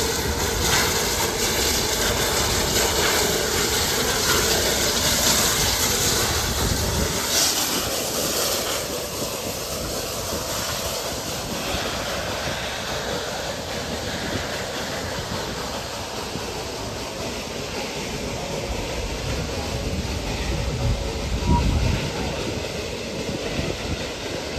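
An 1899 Heisler geared steam locomotive passes slowly, hissing steam, followed by open passenger cars rolling on the rails. The hiss is loudest for the first nine seconds or so, then gives way to a softer steady rolling sound, with one low knock near the end.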